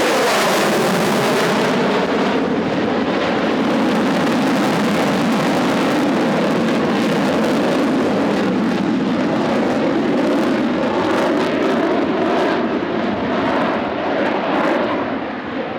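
USAF Heritage Flight formation of an F-22 Raptor and a P-47 Thunderbolt flying by: loud, steady jet and engine noise that eases off slightly near the end.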